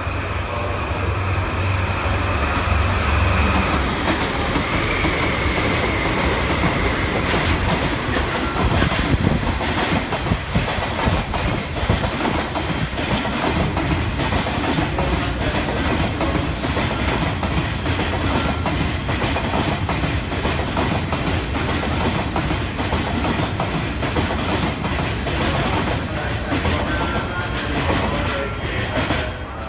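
JR freight train passing: a low locomotive hum for the first few seconds, then a long steady clatter of wagon wheels over the rail joints that cuts off abruptly at the end.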